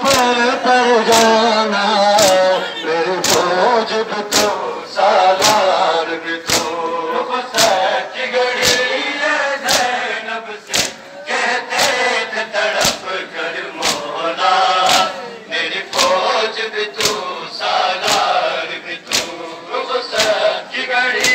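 A crowd of men chanting a noha in unison over a steady beat of hands slapping bare chests (matam), a sharp slap about once a second.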